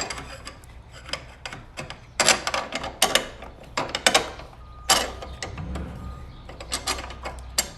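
Irregular metallic clicks and clinks of hardware and hand tools being handled while strut-tower spacers for a chassis brace are fitted, in uneven clusters rather than a steady ratchet rhythm.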